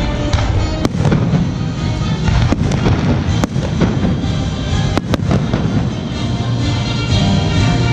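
Aerial fireworks shells bursting: a continuous rumble of booms with sharp cracks about a second in, halfway through, and twice in quick succession about five seconds in. Music plays along underneath.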